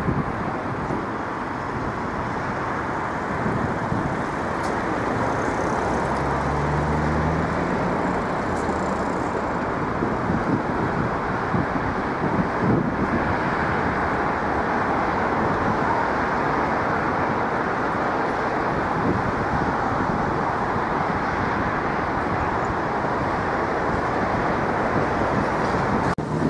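Steady city street traffic noise. A vehicle's engine hums low for a couple of seconds about six seconds in.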